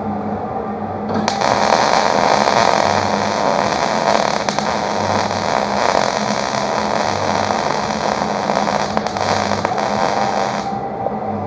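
Hobart MIG welder's arc crackling and sizzling steadily as a bead is run on steel. It strikes about a second in and cuts off near the end.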